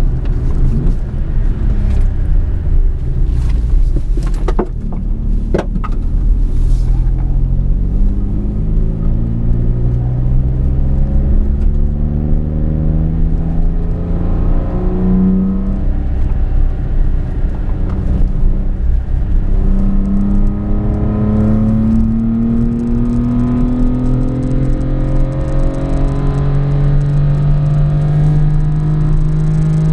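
Toyota Aygo's engine, fitted with a K&N intake, heard from inside the cabin over a steady low road rumble, pulling hard through the gears: its note climbs several times, the longest climb building through the last third.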